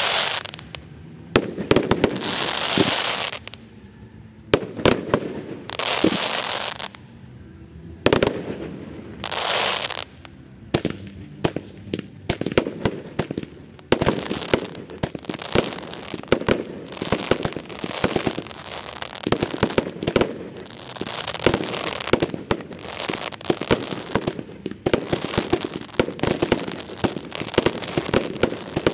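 Ground-level fireworks display: spark fountains spraying with rushes of hiss, broken by sharp bangs and cracks of effects firing. From about halfway the cracks come thick and almost continuous.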